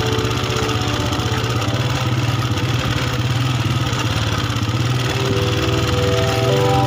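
Small motorcycle engine running steadily at low revs on a rough dirt track, a fast even pulsing drone.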